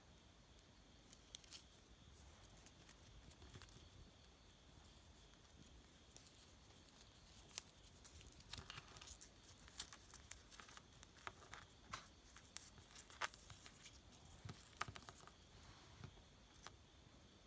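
Faint, irregular scratching and clicking as a saw stag beetle is handled and its clawed legs scrabble on a wooden floor, growing more frequent about halfway through.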